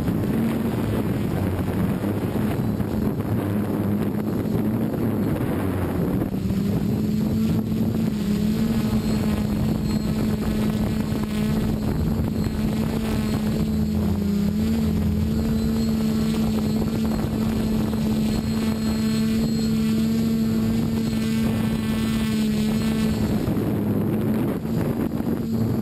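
Quadcopter drone's motors and propellers humming steadily, heard from the drone's own camera, over a rush of air. The hum's pitch steps up a little about six seconds in and wavers briefly midway.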